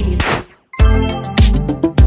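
Background music: a falling swoosh ends one track, there is a brief silence, and just under a second in a new track starts with a steady beat of about one and a half beats a second.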